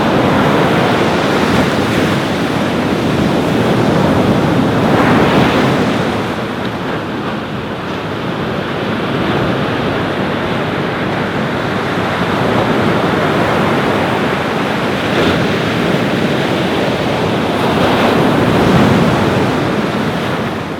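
Ocean waves breaking and washing on a beach, rising to louder swells about a quarter of the way in and again near the end, with wind buffeting the microphone.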